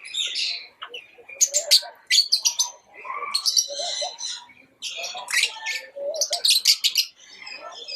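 Pet lovebirds chirping in quick bursts of high-pitched calls, with short pauses between the bursts.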